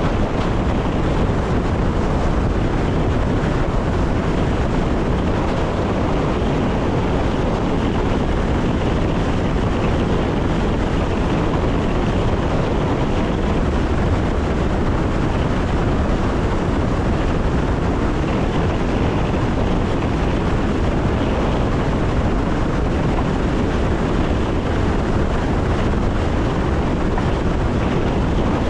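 Electric passenger train running at a steady speed: a constant rumble of wheels on rails mixed with rushing wind noise, heard from the driver's cab.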